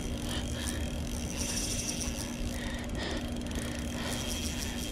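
Shimano Stradic Ci4 1000-size spinning reel being cranked to retrieve line, its gears ticking, over a steady low rumble and hum.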